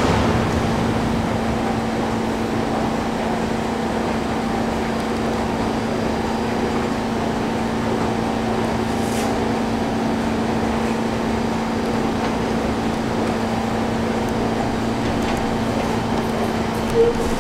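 Steady hum and rushing noise of an underground subway station's ventilation, holding one even low hum throughout. A single short, high tone sounds about a second before the end.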